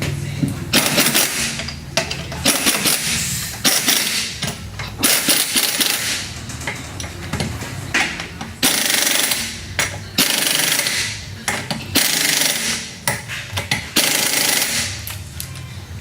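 Pneumatic impact wrench rattling in a series of short bursts, one after another, about a dozen in all.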